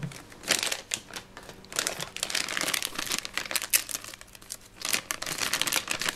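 Clear plastic packaging bag crinkling in irregular bursts as small plastic toy parts are pulled out of it and handled.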